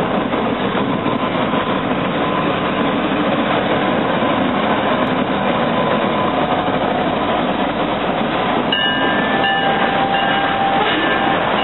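Freight train passing close by, a diesel locomotive followed by covered hopper cars, with the steady noise of its wheels running on the rails. From about nine seconds in, thin high wheel squeals come and go over the rolling noise.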